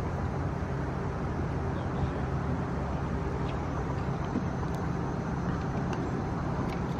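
Steady low drone of outdoor background noise with a faint hum and no distinct events.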